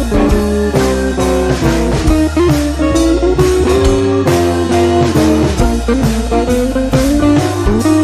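Background music: a bluesy guitar tune with drums, playing steadily.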